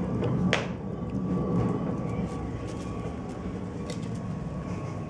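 Steady low mechanical rumble, like a motor running, with a thin steady whine over it and a few sharp clicks, the loudest about half a second in.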